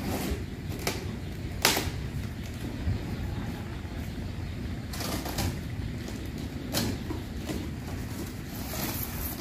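Box cutter slicing through packing tape on a cardboard box, then the cardboard flaps being pulled open: a few short sharp rips and scrapes, the loudest about two seconds in, over steady low background noise.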